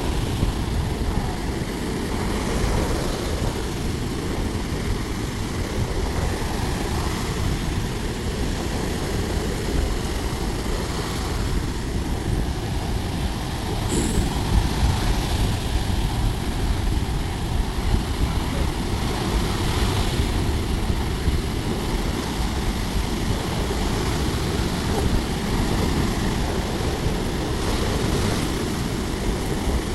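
Sea waves washing onto a beach: a steady, dense noise with no clear tone, heaviest in the low end.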